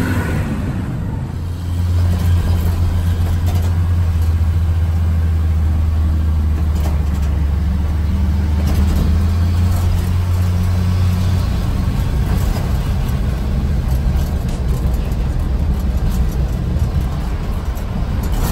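A van driving past close by, then a steady low drone of engine and tyre noise heard from inside a moving vehicle, easing off a little about two-thirds of the way through.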